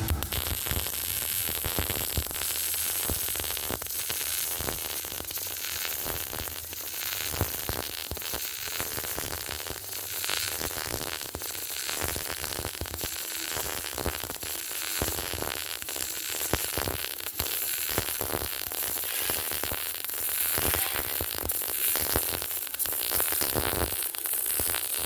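MIG (wire-feed) welding arc crackling steadily while a vertical-up fillet weld is run on a T-joint with a side-to-side upside-down pyramid weave.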